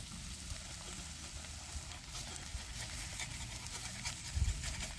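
Faint crackling and sizzling of campfire cooking, with sharper crackles from about two seconds in over a low rumble.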